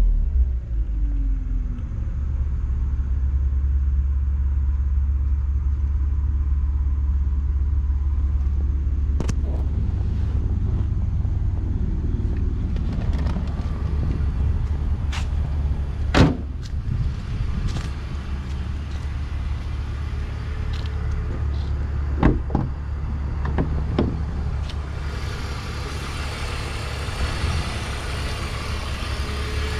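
BMW Z4 2.5i's 2.5-litre inline-six idling steadily, its revs settling back to idle in the first second or so. There are a few sharp knocks midway. Near the end it is heard more openly from the engine bay, with a brighter mechanical whir.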